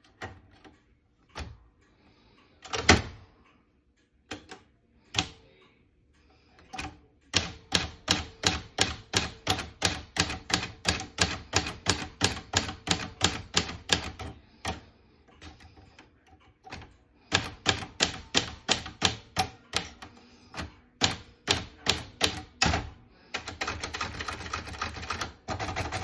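Royal portable manual typewriter being typed on: a few scattered key strikes, then a steady run of keystrokes at about four or five a second, a pause, another run, and near the end a faster, denser rattle of keys.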